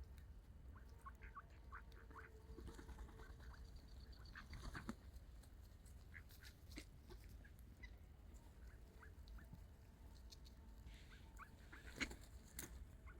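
Ducks calling faintly, with short scattered bird chirps over a steady low rumble; a sharp click comes near the end.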